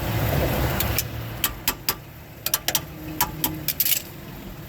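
Ford Edge engine idling with a steady low hum that drops off a little under two seconds in. A scatter of sharp clicks and taps comes as the steering is turned and the tie rod is worked.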